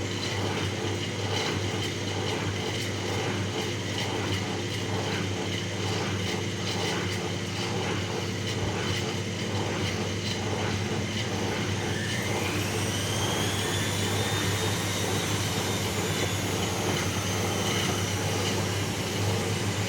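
Bauknecht WAS 1400 washing machine running with a steady hum and a rhythmic pulsing. About twelve seconds in, a whine rises in pitch and then holds high as the motor speeds up.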